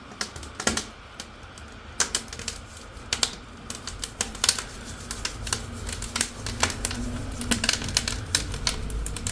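Wood fire crackling and popping in the firebox of a newly built brick stove-fireplace, irregular sharp snaps throughout. A low rumble of the draft builds from about four seconds in, the stove set to full draft.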